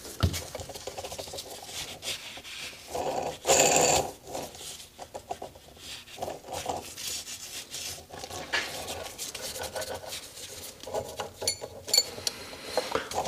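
Outer ball bearings on a Sea-Doo 951 DI crankshaft spun by hand, giving an uneven crunchy rasp, with a louder stretch about three and a half seconds in and a few light clicks near the end. The roughness is the sign of worn outer main bearings, which the owner judges bad enough to swap in another crank.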